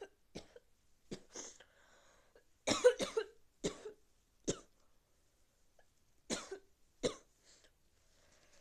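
A person with a cold coughing: a string of short, separate coughs. The loudest come in a cluster about three seconds in, with single coughs spread out before and after.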